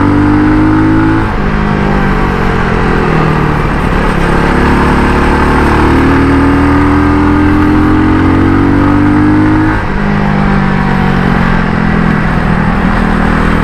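Benelli TRK 251's single-cylinder engine under way, its note climbing under throttle and dropping sharply twice, about a second in and again near ten seconds, over a steady rush of wind and road noise.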